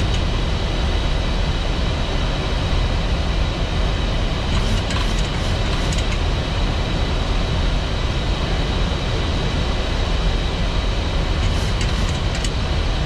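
Steady flight-deck noise of a Boeing 737 MAX in flight: a constant rush of airflow and engine noise with a faint steady hum, and a few faint clicks about five and twelve seconds in.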